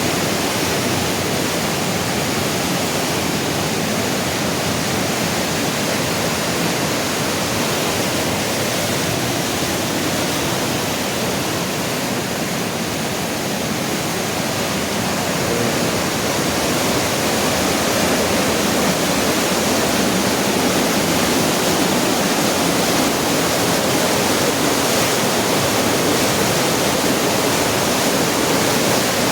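Flood-swollen mountain stream rushing in a loud, steady roar of water. It grows a little louder about halfway through.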